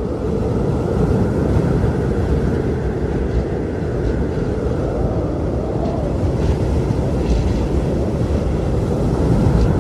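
Strong wind blowing steadily as a deep, rushing noise that swells a little and eases without stopping.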